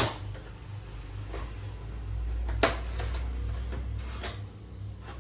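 Sharp plastic clicks and snaps, about five of them, the loudest right at the start, as the back cover clips of a Dell Inspiron 3264 all-in-one PC are pried loose one after another. A low steady hum runs underneath.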